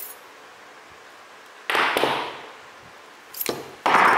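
Spot-welded nickel strip being torn apart with pliers. There are harsh ripping sounds of thin metal, one a little under two seconds in and two more close together near the end.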